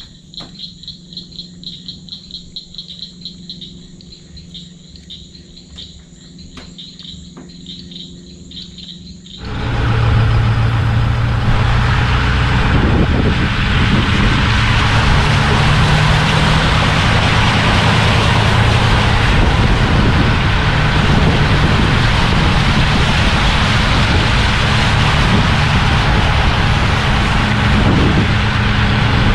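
A pulsing night chorus of insects or frogs with a low hum underneath. About a third of the way in it gives way suddenly to the loud, steady rumble of a car driving along a dirt road, tyre and road noise heard at the microphone.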